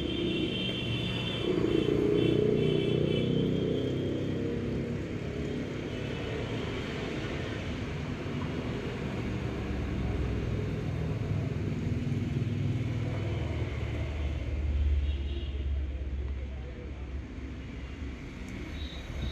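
Working noise of a washing machine's spin motor being tightened into place, over a steady low rumble that peaks about three-quarters of the way through.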